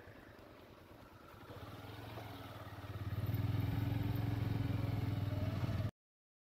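Engine of a moving motor vehicle, heard from on board as a low, steady drone that grows much louder about three seconds in. The sound cuts off abruptly near the end.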